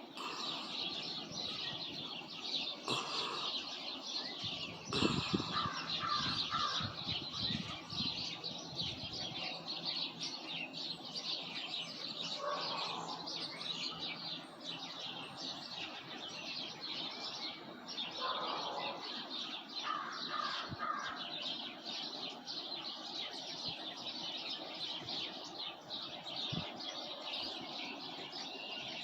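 A chorus of many small birds chirping and singing continuously, with a few lower, louder calls from other birds breaking in now and then.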